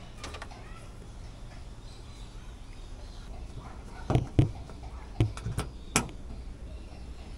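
Knocks and clicks from a carpet-covered lid panel being set back in place and a small pin fastener pushed into it: two knocks about four seconds in, then three sharper clicks, the last and loudest about six seconds in.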